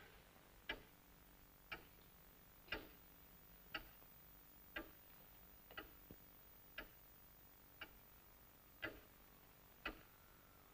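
Clock ticking slowly, one sharp tick about every second, with near silence between the ticks.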